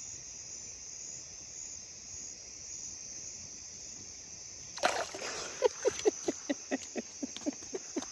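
Night insects chirring steadily. About five seconds in, louder splashing and sloshing of water begins, a quick run of short splashes several a second.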